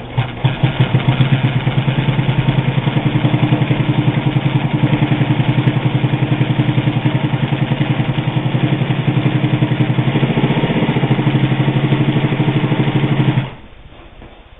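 Pfaff 130 sewing machine running at a fast, steady pace, stitching through heavy split leather with a rapid, even beat of needle strokes; it stops abruptly about a second before the end.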